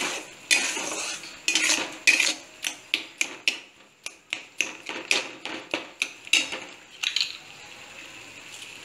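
Steel spatula scraping and knocking against an aluminium kadai, irregular strokes about twice a second, as grated pineapple is stirred in ghee. Near the end the strokes stop and only a quiet steady sizzle of the frying fruit is left.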